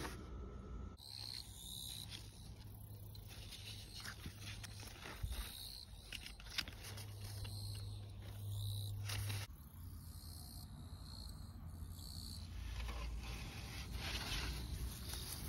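Outdoor garden ambience with insects calling steadily in a high, broken-up band. A low hum runs underneath, and there are two sharp knocks about five and six and a half seconds in.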